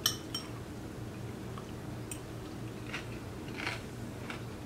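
A fork clinks against a bowl, then a person chews a mouthful of crisp marinated cabbage, with faint crunches every second or so.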